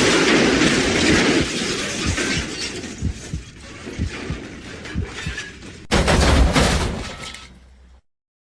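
Car crash sound effect: the tail of a collision, with glass shattering and debris clattering and knocking as it dies down. About six seconds in a second crash hits suddenly and fades out, followed by silence.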